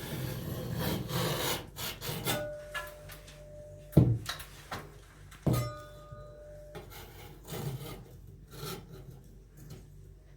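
Scraper blade rubbing over self-adhesive mesh tape on a plastered ceiling, pressing it down so it sticks. There are two sharp knocks about four and five and a half seconds in, then lighter intermittent scraping.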